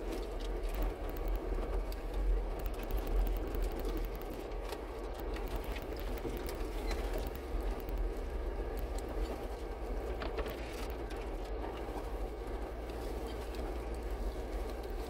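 A 4x4 crawling slowly over a rocky trail: a steady low rumble of engine and drivetrain, with scattered ticks and knocks from the rocks.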